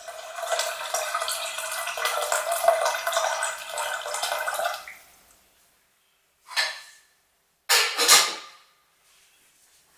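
Water pouring steadily into a vessel, cut off about five seconds in, followed by two short knocks or scrapes of kitchenware.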